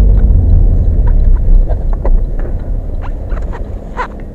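Low rumble of a moving car's engine and road noise inside the cabin, growing quieter toward the end, with scattered light clicks and ticks.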